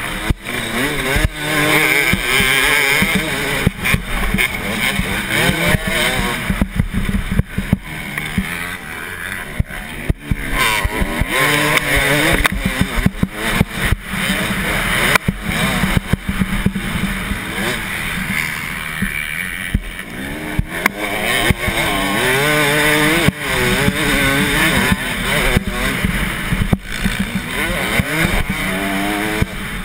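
Motocross bike engine revving hard, its pitch climbing and dropping again and again as the rider accelerates, shifts and backs off through the corners.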